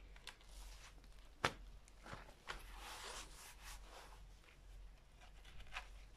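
Faint rustling and rubbing of hands handling wet silk fibres sandwiched in netting in a tray, with a few light taps, the sharpest about a second and a half in.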